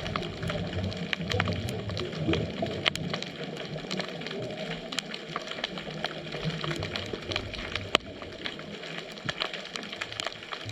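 Underwater ambient sound picked up through a GoPro's dive housing: irregular sharp clicks and crackles over a low, shifting rumble of moving water.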